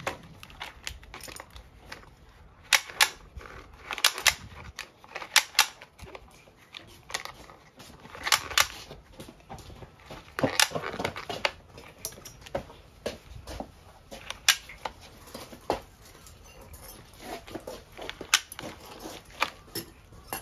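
Irregular sharp plastic clicks and snaps with brief scraping as a brush cutter's nylon-cord trimmer head is handled and its nylon line is pulled through the head.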